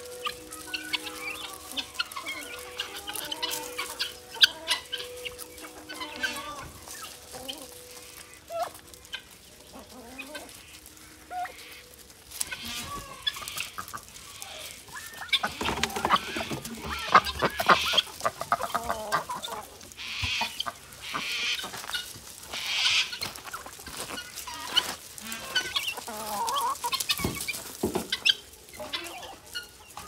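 A mixed poultry flock of guinea fowl, turkeys, ducks and chickens, clucking and calling as it feeds on gravel. The calls are busiest and loudest about halfway through.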